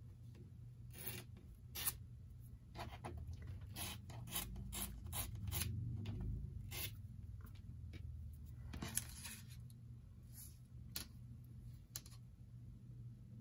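Paper card being trimmed along the edge of a clear acrylic ruler: a run of short strokes of paper noise, coming quickly for a few seconds, then a longer stroke near the middle and a few scattered ones toward the end.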